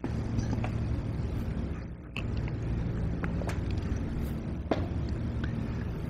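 Steady low hum, with several light clicks and taps scattered through it.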